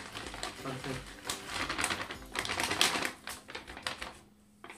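Potting soil mixed with compost pouring out of a plastic pouch into a pot, a dense crackly rattle of falling soil with the bag crinkling; it stops about four seconds in.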